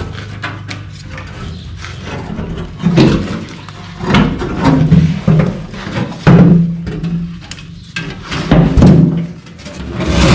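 A fuel tank being worked loose and lowered out from under a Nissan GU Patrol: irregular knocks, thuds and scrapes as it shifts and comes free.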